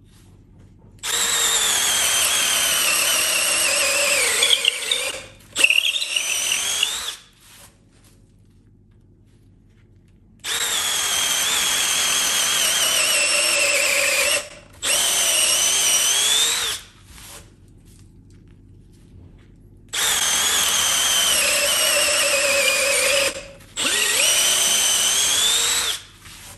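Milwaukee M18 2801-20 cordless drill boring into stacked pine 2x4 boards, three times. Each time the motor whine sags slowly in pitch as the bit bites deeper under load. It stops for a moment, then a shorter burst follows with the pitch climbing back up.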